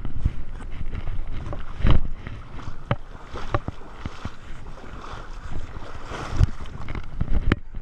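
A person wading through water, with irregular splashing and sloshing close to the microphone and a few louder splashes.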